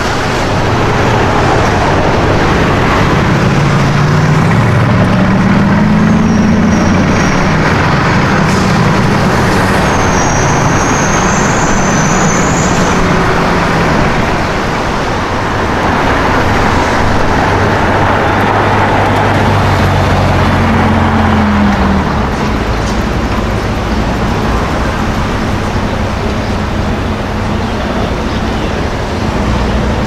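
Slow city-street traffic: car engines idling and pulling away, their revs rising briefly a few times. Among them is a Ferrari California T's twin-turbo V8 creeping in the queue.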